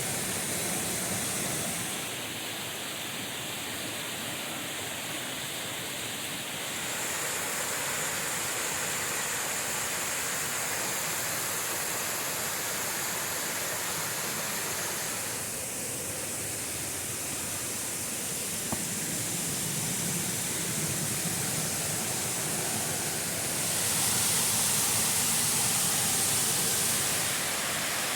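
Waterfall rushing down a rocky glen, a steady noise of falling water that changes in loudness and tone a few times and is loudest near the end.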